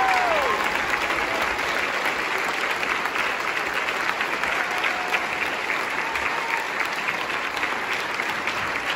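Audience applauding steadily after a sung piece, with a short falling whoop right at the start.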